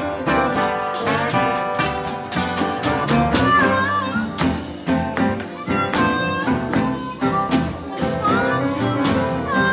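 Blues harmonica solo played into a microphone, sustained notes with bent, wavering pitches a few times, over a slow blues accompaniment of acoustic guitars.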